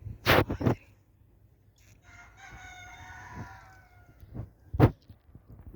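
A rooster crowing once, a drawn-out call of about two seconds, slightly falling in pitch. Short sharp knocks come just before it and again after it, and they are the loudest sounds.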